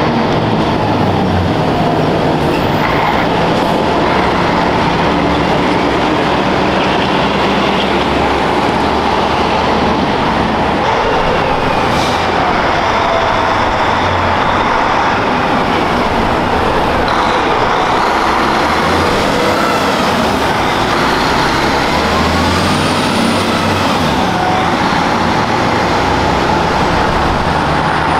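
Heavy diesel trucks and road traffic driving past: steady engine and tyre noise, with engine notes that rise and fall as the vehicles change speed.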